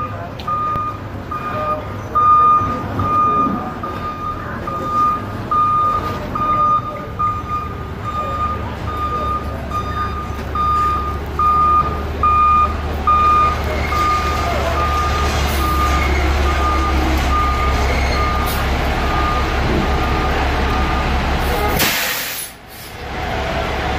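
Fire truck backing up, its reversing alarm beeping steadily over the low rumble of its diesel engine. The beeps fade out past the middle as the engine grows louder, and near the end a short, loud burst of air hisses from the brakes as the truck is parked.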